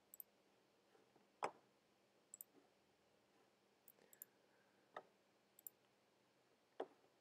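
Computer mouse clicks, several in quick pairs, scattered through quiet room tone, with a few soft knocks, the loudest about a second and a half in.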